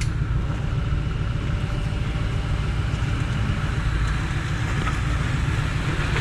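Jeep engine idling, a steady low rumble.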